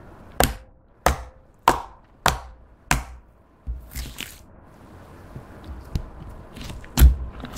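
Fingertips poking into a flat disc of clear slime mixed with eyeshadow: five sharp pops about half a second apart as holes are pressed in. Then softer squishing as the slime is lifted and folded, with one loud pop near the end.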